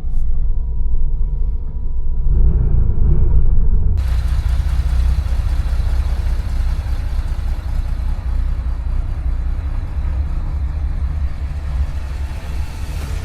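A car running: mostly a low rumble. About four seconds in it changes abruptly to a steadier rumble with hiss across the range, like road and wind noise.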